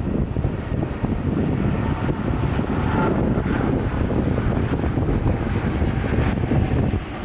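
Boeing 787-9's twin jet engines at takeoff power as the airliner lifts off and climbs away, a steady rumble.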